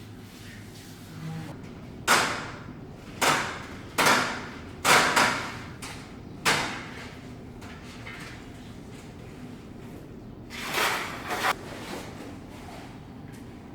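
Short sliding, swishing strokes of wallpaper installation work. There are about six in quick succession, each starting sharply and fading out, then two more about eleven seconds in.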